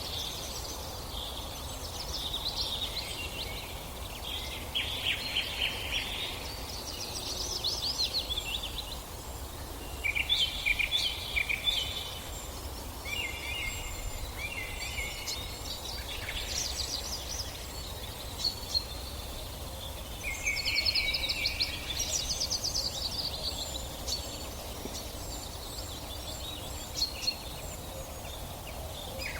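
Songbirds singing: short, rapid trilled phrases, one every few seconds, over a low steady rumble.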